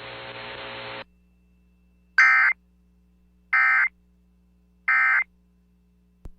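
Three short bursts of Emergency Alert System SAME digital data tones, about 1.3 s apart: the end-of-message code that closes a severe thunderstorm warning. Before them, radio hiss cuts off about a second in.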